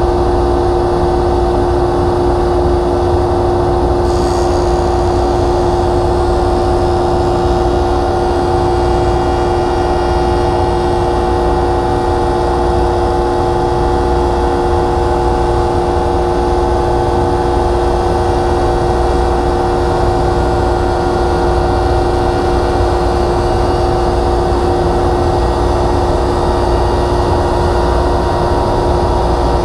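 Delta DJ-20 jointer running steadily with an even hum and whine, as a thin board is fed slowly over its Byrd Shelix helical cutterhead.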